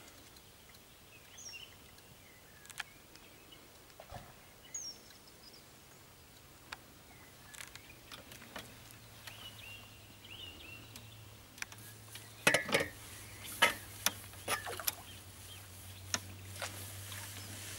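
Small birds chirping in the background, then, from about twelve seconds in, a run of sharp splashes as a hooked roach is played at the surface on a float rod.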